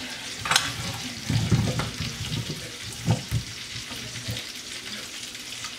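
Hands tossing cubed vegetables coated in flour and seasoning in a glass baking dish: irregular soft rustling, with a few dull knocks about a second and a half in and again about three seconds in.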